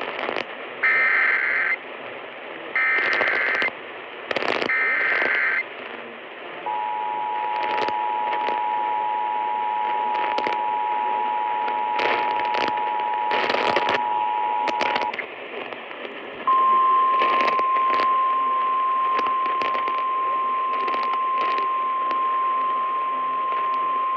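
Emergency Alert System activation heard over AM radio: three short bursts of screeching SAME header data, then the EAS two-tone attention signal held for about eight seconds. After a short gap, a single steady Weather Radio alert tone sounds, all over AM static with frequent crackles.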